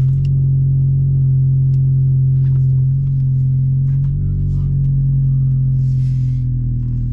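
10th-gen Honda Civic hatchback engine running under way, heard from inside the cabin as a steady hum. Its note changes briefly about four seconds in.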